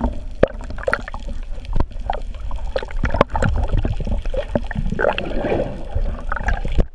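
Water sloshing and gurgling around a camera held just below the surface, with scattered small clicks. About five seconds in, a rush of a diver's air bubbles swirls past.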